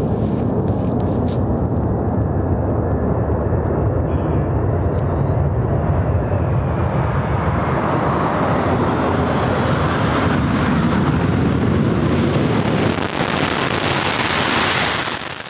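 C-17 Globemaster III jet transport landing on a dirt strip, its four turbofan engines running with a loud, steady rumble. The engine noise gets harsher and brighter near the end as the aircraft rolls out through its own dust cloud.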